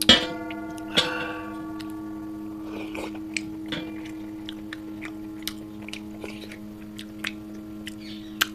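Wet mouth clicks and lip smacks from licking chutney off the fingers, over a steady low hum. Two short ringing tones sound near the start and about a second in.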